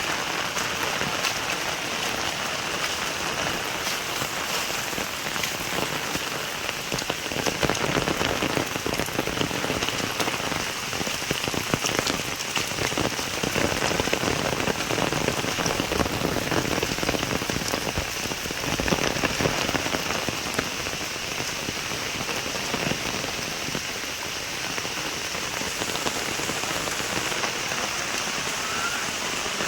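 Steady rain falling on surfaces, a dense patter of drops that goes on without a break.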